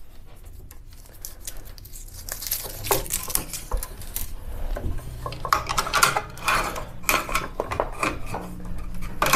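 Hand-handling of freshly stripped 14-2 NM electrical cable: scraping, rustling and small clicks of the sheathing and copper wires, busier from about halfway through as the cable is fed into a plastic electrical box.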